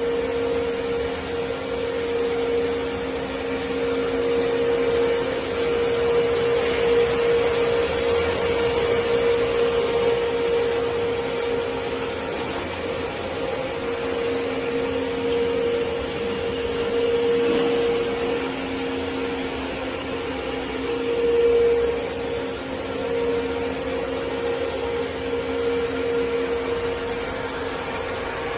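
Bekamak BMSO 560CH automatic band saw running: a steady hum at a constant pitch with a hiss over it.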